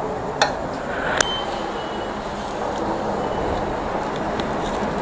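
Steady background rush of a petrol pump forecourt, with two sharp clicks about half a second and a second in, and a high beep lasting about a second just after the second click.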